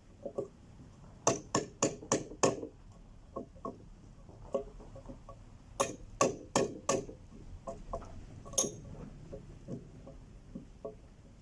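Sharp hammer blows chopping out a square mortise in wood: a run of five about a second in, four more around six seconds, and a single blow near the end, with softer knocks and scraping between.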